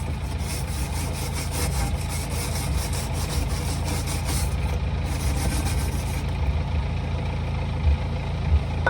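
A wire brush scrubbing rust off a metal exhaust joint in quick, repeated scraping strokes, several a second; they stop about six seconds in. Under it an engine idles with a steady low rumble.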